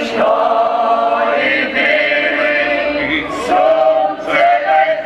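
Mixed group of men and women singing together into microphones, with no instruments, in long held notes.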